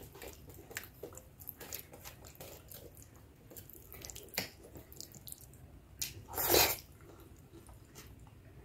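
Close-up wet eating sounds: fingers squishing soft khichdi on a steel plate and closed-mouth chewing, made up of many small sticky clicks. About six and a half seconds in there is one louder, hissy burst.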